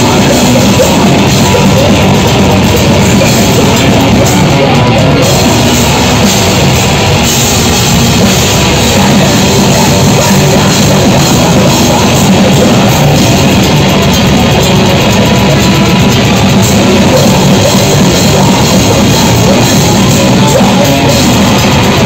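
Grindcore band playing live at very loud, unbroken volume: distorted electric guitar, drum kit and harsh screamed vocals.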